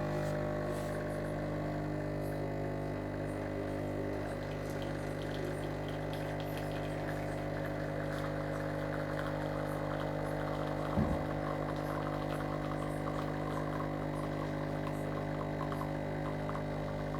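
A Sencor SES 8500BK fully automatic espresso machine's pump runs steadily, humming, while it brews, with a brief click about eleven seconds in.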